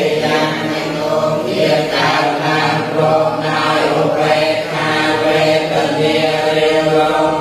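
Buddhist monks and laypeople chanting together in unison from their books: many voices in a steady, monotone recitation.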